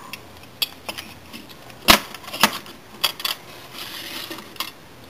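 Hard plastic Lego pieces clicking and knocking as a hand handles the models: a scatter of sharp clicks, the loudest about two seconds in.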